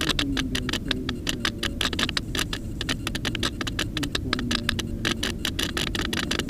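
Electric motor of an AXN floater jet RC plane running in flight, its whine wavering in pitch, over a dense irregular crackle.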